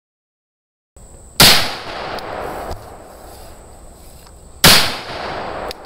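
Two gunshots about three seconds apart, each a sharp crack followed by an echo that fades over about a second.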